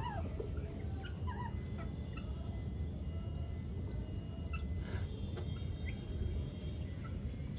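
Chickens clucking softly in short scattered calls while they peck at feed, over a steady low rumble, with a brief scratchy burst about five seconds in.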